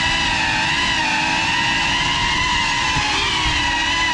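GEPRC CineLog 35 FPV cinewhoop's brushless motors and ducted propellers whining steadily, the pitch rising and falling slightly as the throttle changes in flight.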